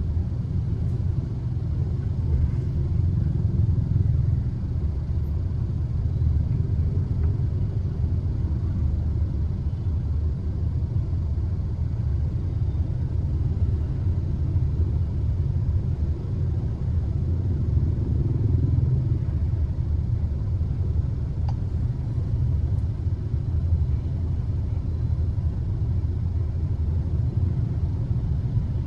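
Steady low rumble of dense motorbike traffic, many small engines idling and running close by.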